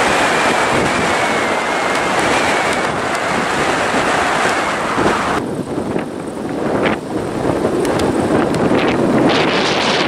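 Strong wind blowing across the microphone. For the first five seconds it sits over the running of a jet airliner's engines on the runway, with a faint high whine. After an abrupt change about five seconds in, gusting wind dominates.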